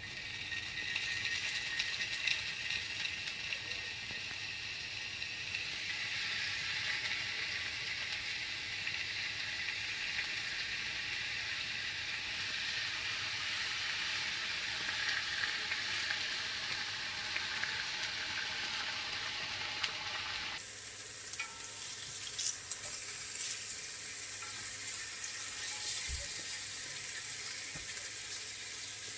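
Food frying in a hot pan, a steady sizzling hiss. It drops suddenly to a quieter sizzle about two-thirds of the way through, with a few light taps after that.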